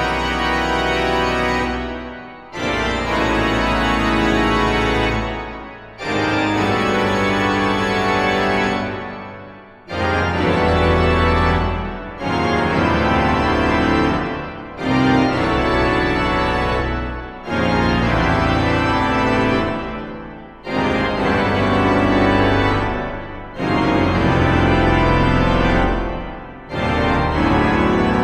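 Pipe organ playing loud, full chords over a deep pedal bass, in blocks of two to three seconds that each fade briefly before the next one starts.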